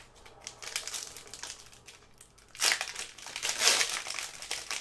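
Crinkling plastic wrappers of trading-card packs being handled and opened, in irregular rustles that get louder a little past halfway.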